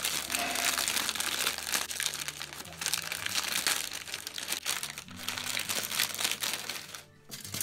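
Thin clear plastic bag holding red model-kit runners crinkling as it is pulled open and handled, a dense crackling that stops just before the end.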